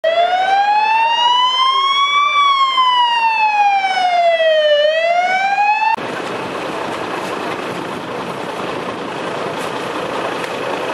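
Emergency vehicle siren wailing: its pitch rises for about two seconds, falls for about two and a half, and starts rising again before cutting off abruptly about six seconds in. After that, steady quieter outdoor background noise.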